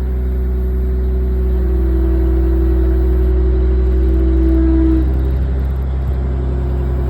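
Diesel engine of a Caterpillar 345CL long-reach excavator running steadily and working. A higher steady tone comes in about two seconds in and stops about five seconds in, as the loudness swells a little and then eases.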